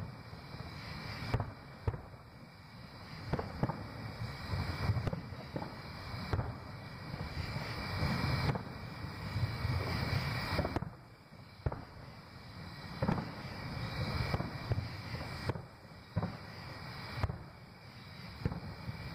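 Distant aerial firework shells bursting: a dozen or more sharp booms at irregular intervals, each trailing off into a low rumble, with the rumble carrying on between bursts.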